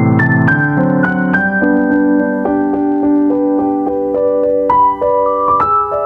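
Background piano music: a slow melody of held notes over chords.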